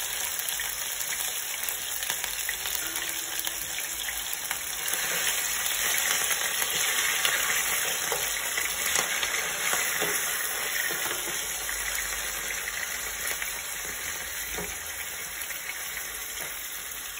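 Marinated chicken pieces sizzling in hot olive oil in a frying pan. The sizzle grows louder about five seconds in, with a few taps and scrapes of a slotted spatula as the pieces are turned.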